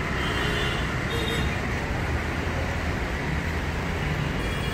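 Steady road traffic noise from a busy city street: cars, buses, scooters and autorickshaws passing.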